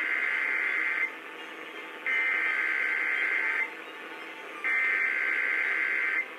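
Emergency Alert System SAME header: three bursts of warbling digital data tones, each about a second and a half long with about a second between them, heard over a radio broadcast.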